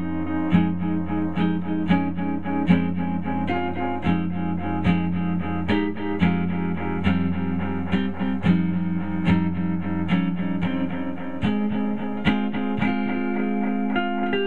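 Guitar played through a Strymon El Capistan tape-echo pedal: picked notes roughly every three-quarters of a second, each trailing into repeating echoes over a sustained low note that drops away about two-thirds of the way through.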